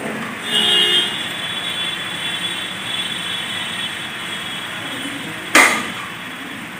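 Steady background noise with a brief electronic tone about half a second in, and a single sharp knock about five and a half seconds in.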